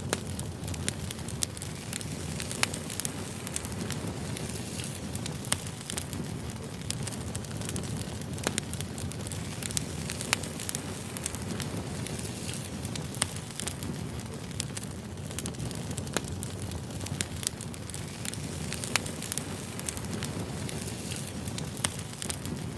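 Burning firewood crackling and popping: irregular sharp snaps over a steady low rumble of the fire.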